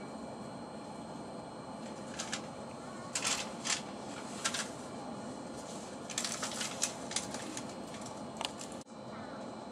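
Steady running noise inside the carriage of a Frecciarossa high-speed train, with a scattering of short, sharp hissing clicks from about two seconds in and a brief sudden drop in level near the end.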